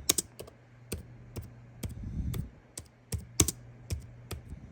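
Computer keyboard being typed on: irregular key clicks, several a second, with a few louder taps.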